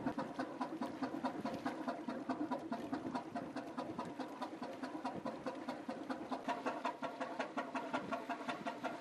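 Three-cylinder Callesen 427 CO ship's engine running steadily under way, an even beat of knocks at roughly five a second.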